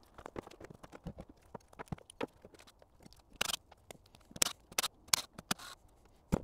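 Small metal parts and hand tools clicking and knocking on a wooden workbench as a diesel injection pump is worked on: irregular light clicks, with several louder sharp knocks in the second half.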